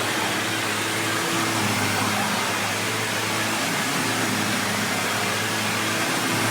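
1999 Hoover WindTunnel Self-Propelled Ultra upright vacuum cleaner running steadily: a constant motor hum under a rush of air.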